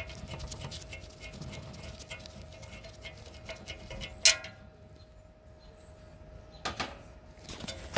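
Gloved fingers turning a set screw out of the metal hub of an old air conditioner condenser fan blade, with light rapid ticking and rubbing. A sharp click comes about four seconds in and another near seven seconds.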